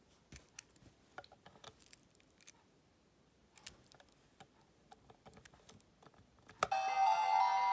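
Light plastic clicks and ball-chain rattles as the gold key piece is handled against a Mewkledreamy Dreamy Compact toy. Near the end a sharp click, and the compact's electronic melody starts loudly and plays on.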